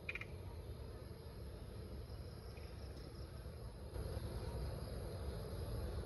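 Night-time chorus of crickets: a steady, high-pitched trill, over a low rumble that grows louder about two-thirds of the way in. A brief chirp sounds right at the start.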